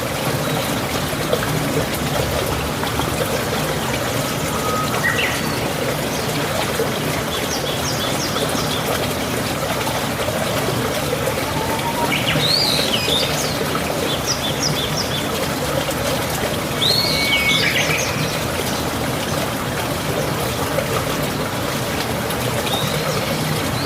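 Mountain stream water flowing and trickling steadily, with birds calling over it: brief chirps, a quick series of repeated notes about a third of the way in, and sweeping calls near the middle and again a few seconds later.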